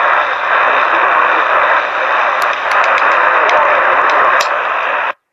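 Radio static from a receiver tuned to WBAP: a steady hiss with a few sharp crackles in the middle, cutting out abruptly near the end.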